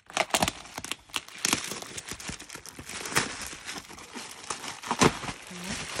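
Bubble-wrap packaging being handled and pulled open: a dense, irregular run of plastic crinkling and crackling.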